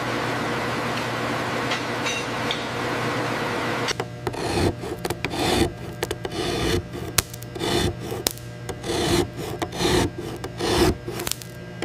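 A steady hiss with a low hum, then from about four seconds in a hand chisel scraping across a hard surface and shaving off chips, in irregular strokes about two a second.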